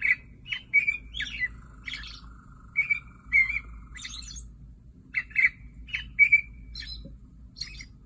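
American robin singing: a series of short, clear whistled phrases, the caroling song remembered as "cheer-up, cheerily, cheer-ee-o", over a steady low background hum.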